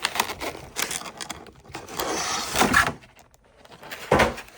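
Handling of an unboxed trading-card collection box and its packaging: scattered clicks, a rustling scrape in the middle, then a single thump near the end.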